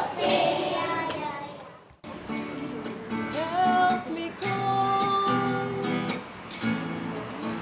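Children singing to strummed acoustic guitar. The music fades out and breaks off about two seconds in, then children's voices and guitar strumming start again.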